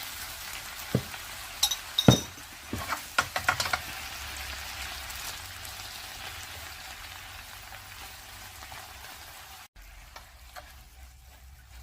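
Chicken breast sizzling in a frying pan, a steady hiss that slowly grows fainter. Several sharp clacks of a utensil against the pan come in the first few seconds as the food is stirred.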